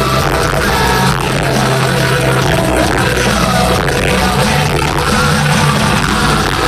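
Live industrial-metal concert music, a band and singer playing loud, recorded on a phone whose microphone is overloaded so the sound comes out distorted.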